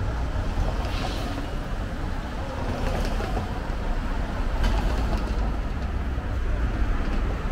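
City street traffic: a steady low rumble of passing vehicles, with a few faint clicks.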